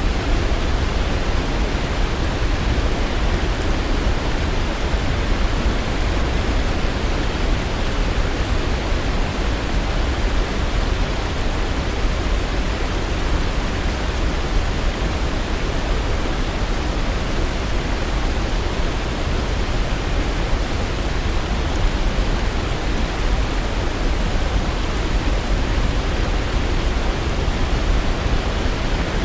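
Waterfall: water falling in a steady, even rush, heaviest in the low end, with no change throughout.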